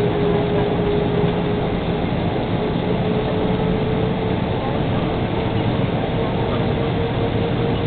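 Airbus A320 cabin noise: a steady rush of jet engine and airflow sound, with a steady hum whose pitch creeps slightly upward.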